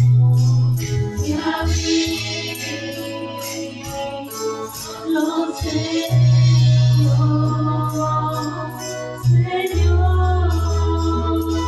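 A song sung in Spanish: a singing voice over sustained bass notes and a steady, quick beat of high percussion ticks.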